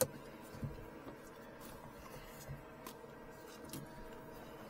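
A few small scattered clicks and taps in a small airplane cockpit, over a faint steady electrical hum with the engine not yet running.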